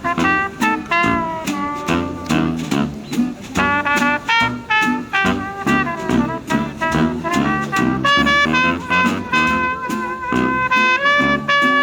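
Instrumental stretch of a song with horn lines over a steady beat.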